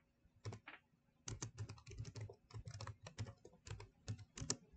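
Typing on a computer keyboard: a couple of key clicks, then a quick, steady run of keystrokes from about a second in.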